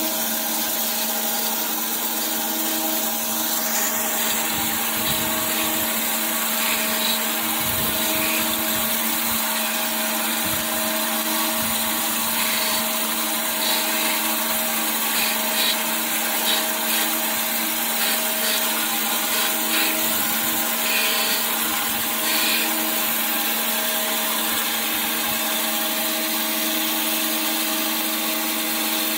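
Surface grinder running with flood coolant, its wheel grinding the face of a hydraulic gear pump housing: a steady machine hum under a hiss of grinding and coolant spray. The worn pump housing face is being resurfaced.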